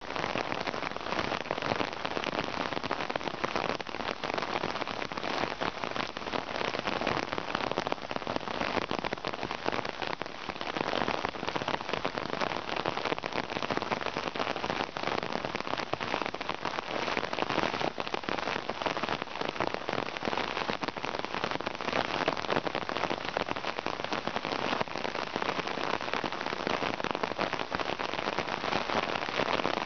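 Steady rain falling on a tarp canopy overhead: an even, dense hiss of countless small drop taps that holds steady throughout.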